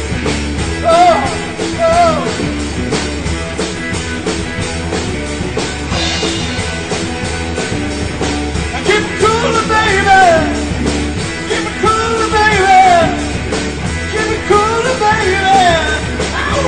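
Live rock band playing a song, with drums keeping a steady beat under bass and electric guitars, and a singer's voice over the top at times.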